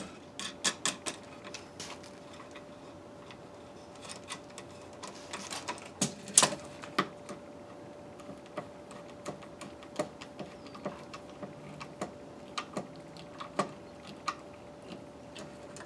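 Irregular light metallic clicks and ticks of a hand screwdriver turning 8-32 machine screws through the steel plate of a lazy susan bearing into plywood, loudest about six seconds in. A faint steady hum runs underneath.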